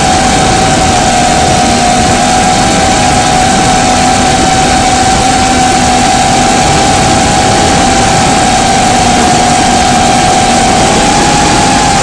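Cinequeen FPV quadcopter's brushless motors and propellers whining at a steady, held pitch over a rush of air, heard close up through the onboard camera's microphone; the pitch steps up slightly near the end.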